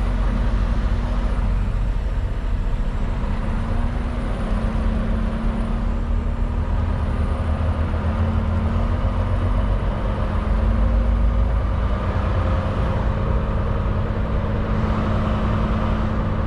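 Semi truck's diesel engine running as the truck moves slowly, heard from inside the cab: a steady low drone with a hum that shifts slightly in pitch a few times.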